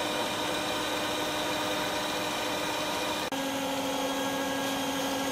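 Stand mixer motor running steadily with a whirring hum as its whisk beats Italian meringue (egg whites with hot sugar syrup) until it cools. The sound drops out for an instant about three seconds in, then runs on slightly lower in pitch.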